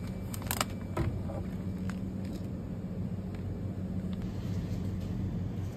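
Steady low hum of supermarket refrigerated display cases, with a few brief crinkles of plastic meat packs being handled in the first second or so.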